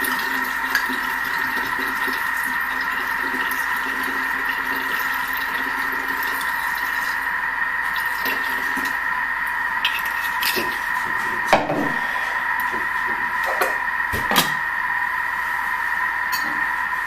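Thermomix TM5 motor running steadily at stirring speed 2 with a whine while heating, as grain spirit is poured into its bowl through the lid opening. A few light knocks come between about ten and fourteen seconds in, and the motor stops right at the end.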